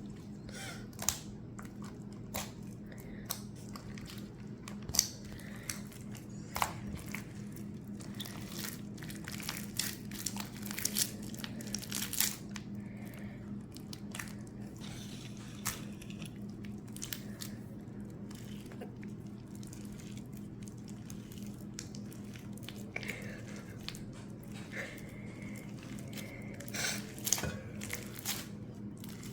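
White glue slime activated with borax being mixed: irregular sticky clicks, crackles and squelches as the slime is stretched and folded, a few sharper pops among them.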